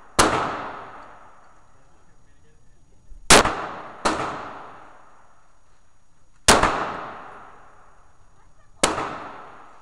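Five 9mm pistol shots fired at an uneven pace, two of them in quick succession about three seconds in. Each sharp crack is followed by about a second of echo off the walls of an indoor range.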